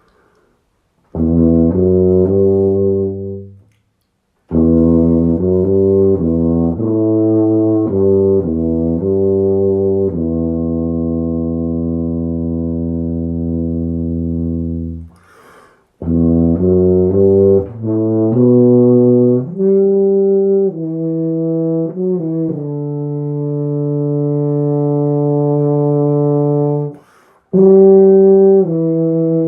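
Mirafone 1865U five-valve C tuba played with a Perantucci 88 mouthpiece: a melodic passage in several phrases, two of them ending on long held notes, with quick breaths between phrases.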